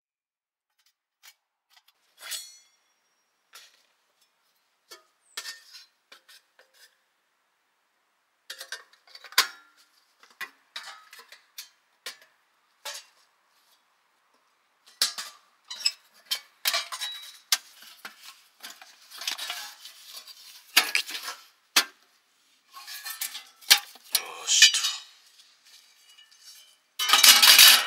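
Irregular clinking and clattering of metal camp gear being handled: sparse light knocks at first, then busier and louder handling in the second half, with a loud run of clatter near the end.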